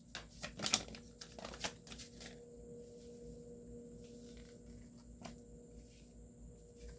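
Oracle cards being shuffled and handled: a quick run of papery rustles and card flicks in the first couple of seconds, then a few faint single clicks.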